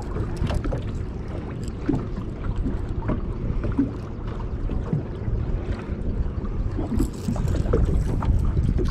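Wind rumbling on the microphone over water lapping against a small aluminium boat's hull, with a few faint light clicks.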